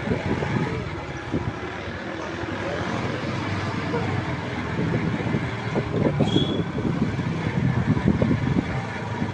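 Small motorcycle engine running steadily as the bike rides slowly along a street, with traffic and street noise around it.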